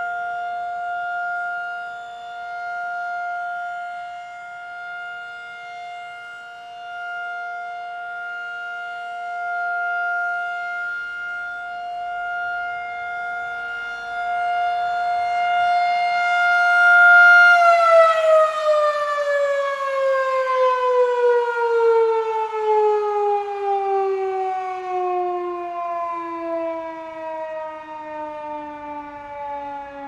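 Federal Signal 2001-DC rotating outdoor warning siren sounding a steady single-pitch tone, the alert signal, that swells and fades as the horn turns. About 17 seconds in the tone cuts out of its steady pitch and the siren winds down, its pitch falling slowly.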